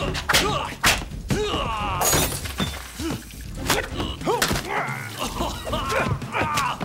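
Action-film fight sound effects: a rapid series of sharp hits and thuds, with glass shattering about two seconds in, and men grunting and shouting between the blows.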